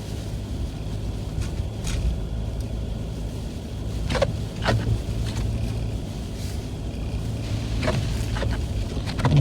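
Inside a car's cabin, driving slowly on a snowy road: a steady low engine and tyre rumble, with a few short sharp knocks or clicks scattered through it.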